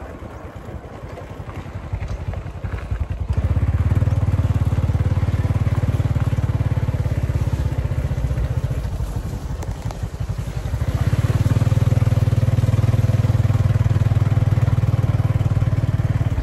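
A small engine running close by, with a fast even low pulse. It comes up about three seconds in, eases off briefly around the middle, then runs loud again.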